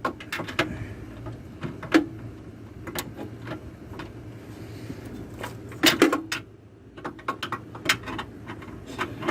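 Irregular metallic clicks and clinks from a torque wrench and socket being worked on a track bar castle nut, with two louder knocks about 2 and 6 seconds in; the socket is too large for the nut, so the wrench won't bite.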